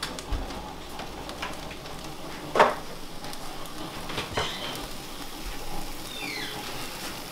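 Egg whites sizzling in a frying pan, with a sharp knock about two and a half seconds in and a lighter one about four and a half seconds in.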